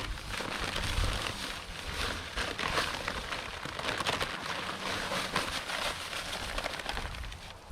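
Dry concrete mix pouring out of a bag into a fence-post hole: a continuous hiss of many small crackles that eases off near the end.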